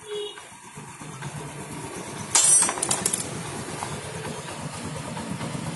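Yamaha Jupiter Z's small single-cylinder four-stroke engine coming to life and running, with a loud clattering burst about two and a half seconds in. It is being run as a test of whether the rough noise has gone after the clutch housing rubber dampers and clutch plates were replaced.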